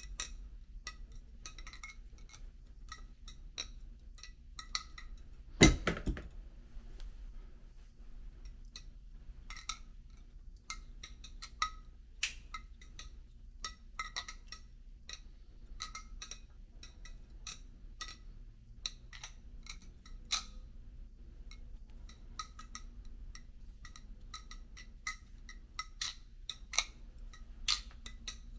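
Serif balisong (butterfly knife) being flipped: its metal handles and latch click and clink against each other in quick, irregular clusters of clacks. One much louder knock comes about six seconds in.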